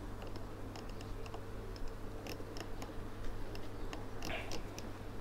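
Control dial of a Ninja Foodi MAX multi-cooker being turned, giving a string of small, irregular clicks as the cooking time is set, over a faint steady hum.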